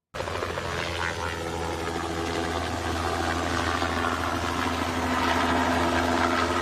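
An engine running steadily at a constant speed, with a low hum underneath; it starts abruptly, as a clip cut in.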